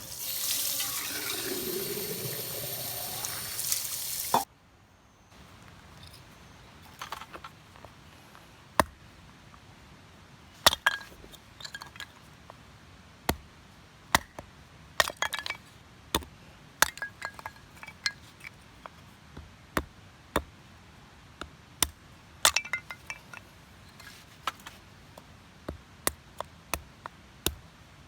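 Water pouring for about four seconds, stopping abruptly, with a tone that falls as it runs. Then scattered light clinks and taps, like small camp gear being handled.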